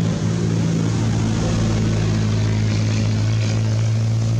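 An engine running steadily at one low, unchanging pitch, a constant motor hum.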